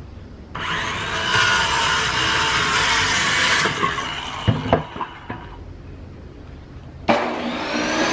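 A handheld circular saw cuts through a wooden board for about three seconds, followed by a few knocks of wood and tool being handled. About seven seconds in, a benchtop table saw starts, its motor whining up to speed and running on.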